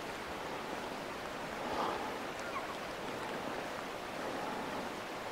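Steady hiss of wind, with a few faint, short falling chirps around the middle.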